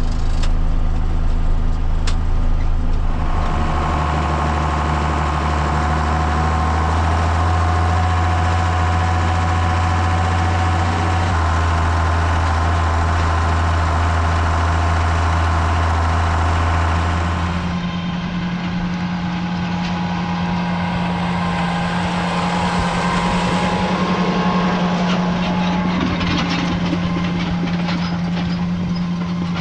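Tractor engine running steadily, its note shifting a few seconds in and again a little past halfway.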